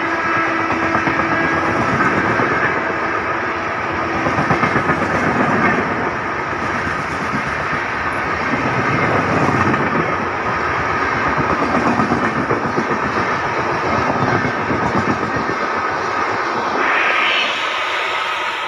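Express train's passenger coaches passing close by at high speed: a steady rush and rumble of wheels on rail with some clickety-clack, dropping off as the last coach goes by at the end.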